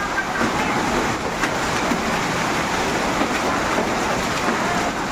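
Heavy hail and rain pelting the ground and surfaces in a dense, steady hiss.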